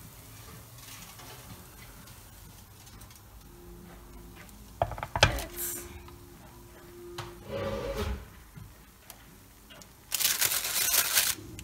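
A glass baking dish set down with a sharp knock about five seconds in, a softer knock a few seconds later, then parchment baking paper crinkling loudly in two long stretches near the end.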